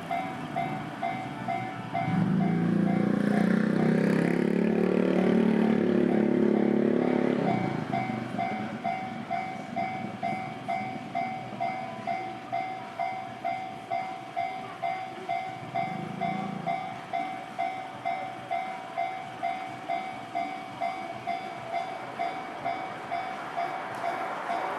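Japanese level-crossing warning bell ringing steadily, about two strikes a second. From about two seconds in, a passing train's low, steady sound rises over the bell for about five seconds, then fades.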